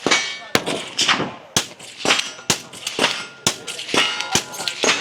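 A string of gunshots at a shooting range: a loud shot about once a second with fainter shots in between, some followed by a brief metallic ring.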